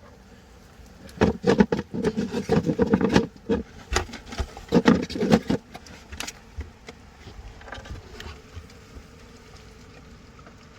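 Honeybees buzzing from an opened hive. The buzz rises and falls as bees fly close by during the first five seconds or so, with a few sharp knocks, then settles to a faint steady hum.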